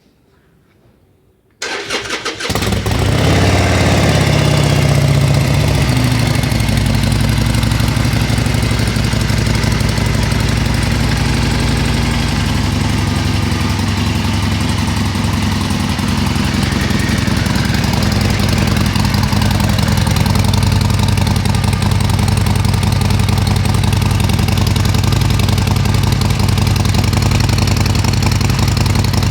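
Harley-Davidson Sportster Seventy-Two's 1200cc air-cooled V-twin on its stock exhaust, cranked on the electric starter about a second and a half in and catching at once. It runs at a slightly raised idle for a few seconds, then settles to a steady idle.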